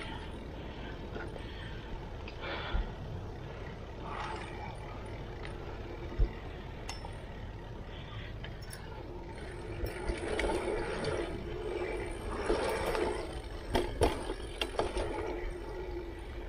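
Mountain bike rolling along a dirt singletrack: a steady low rumble of tyres and riding noise with a couple of sharp knocks early on. About ten seconds in, the bike starts clattering, with rattling and clinking for several seconds before it settles again.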